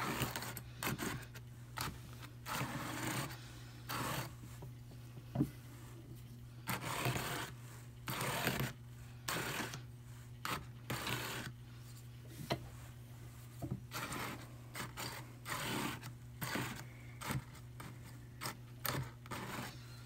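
Targhee wool brushing and scraping against the fine wire carding cloth of a hand-crank Brother Drum Carder Standard, in a series of short, irregular swishes.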